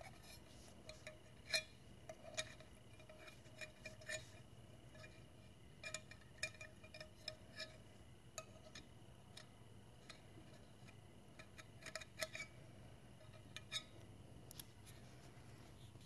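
Faint, irregular metallic clicks and taps, some with a brief ring, from a small metal alcohol-burner tin being handled and its lid worked loose.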